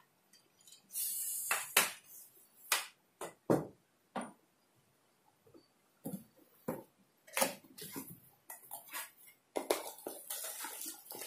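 Handling noise: a fishing rod set down, then a cardboard reel box handled and opened, giving scattered sharp knocks and taps with short rustles of cardboard and packaging that come thicker in the last few seconds.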